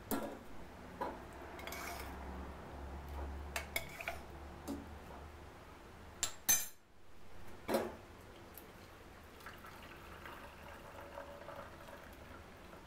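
Stainless-steel vessels and a mesh strainer clinking and knocking against each other several times, the sharpest knock about six and a half seconds in. Near the end, a faint sound of cooked chana dal and its cooking water being poured into the strainer.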